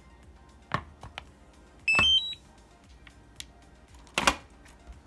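DJI RC-N1 remote controller for the Mini 2 powering on: a short, quick run of rising electronic beeps about two seconds in. Sharp handling knocks come before it and again near the end, the later one the loudest sound.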